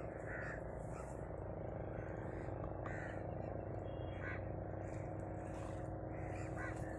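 Short animal calls, heard several times, over a steady low mechanical hum.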